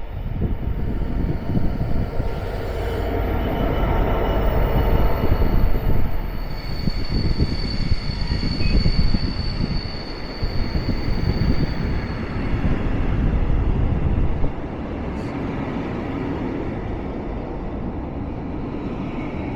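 A train running through the station at speed, a loud rush of wheels and rails with a steady high whine through the middle. It eases to a quieter, steady noise near the end.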